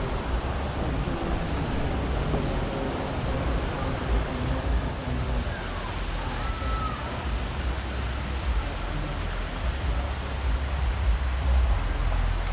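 Steady outdoor rushing noise with a low rumble underneath, and a faint short whistle-like glide about six to seven seconds in.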